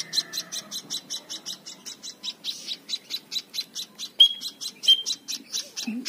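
Young munias (emprit) chirping rapidly, about seven short high chirps a second, typical of begging hand-reared fledglings. Two brief thin whistles come past the middle.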